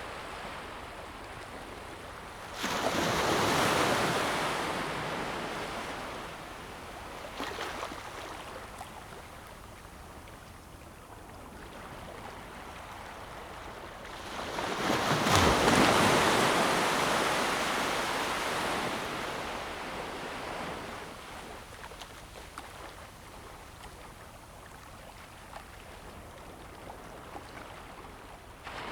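Sea waves breaking on a shore, with a quieter wash between. Two larger waves break, one a few seconds in and one about halfway; each rushes in and fades over several seconds.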